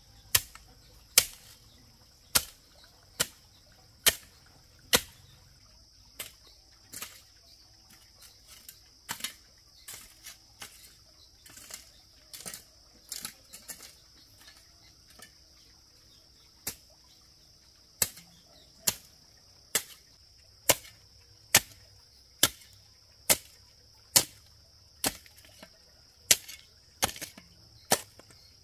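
Repeated sharp strikes of a hand tool, about one a second. They give way in the middle to lighter, irregular knocks, then pick up the same steady pace again. A steady high insect drone runs underneath.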